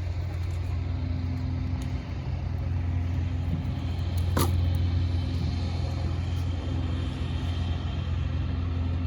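A vehicle's engine running with a steady low drone, and a single sharp click about four and a half seconds in.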